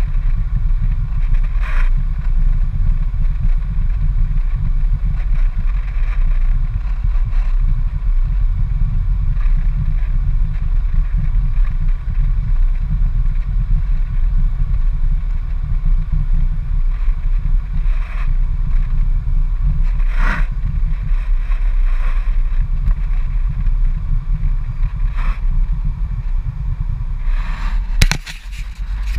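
Steady low rumble of a car driving slowly, its road and engine noise heard from inside the cabin, with a few brief knocks or rattles. A sharp click comes near the end, after which the sound drops for a moment.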